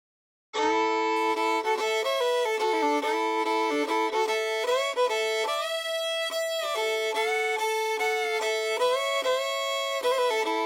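Background music led by a fiddle playing a lively tune, starting abruptly about half a second in after a brief silence.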